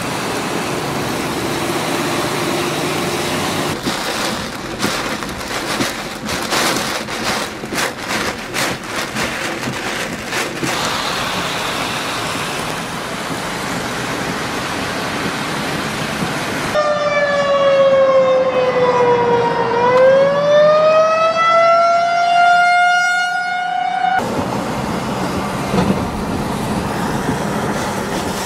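Heavy wind-driven rain and road noise, gusting in the first half. About seventeen seconds in, a siren wails for roughly seven seconds, sliding down in pitch and then rising again, louder than the rain, before the rain and traffic noise return.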